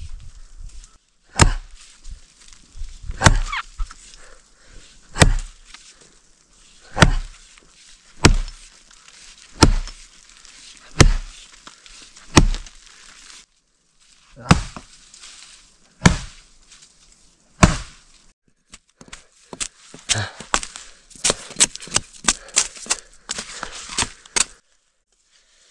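Axe chopping, one sharp blow every one and a half to two seconds, about eleven in all. In the last few seconds come quicker, lighter knocks and cracking.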